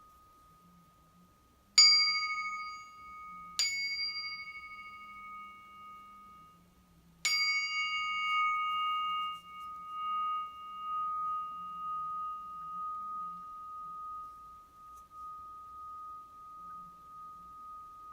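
Medium Nepali flat bell (bilo), an 11 by 17 cm metal plate bell, struck three times, the first hardest, the strikes under two seconds and then nearly four seconds apart. Each strike gives a bright ringing chord whose higher tones fade within a few seconds while one steady high tone keeps ringing long after the last strike.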